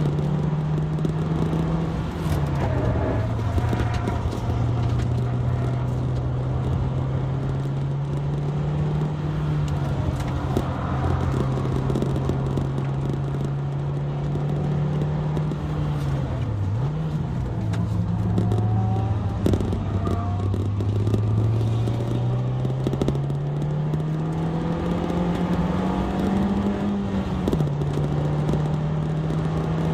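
Honda Fit Hybrid RS's 1.5-litre four-cylinder engine under hard track driving, its pitch climbing steadily and then dropping at each gear change of the six-speed manual. A brief dip partway through and an upshift near the end, over a steady haze of tyre and wind noise.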